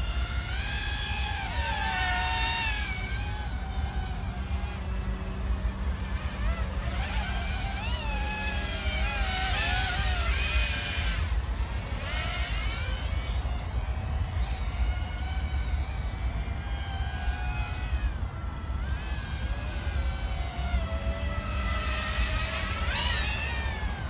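Eachine ATOMRC Seagull 3.5-inch FPV cinewhoop drone in flight, its motors and propellers whining, the pitch gliding up and down as the throttle changes. A low rumble runs underneath.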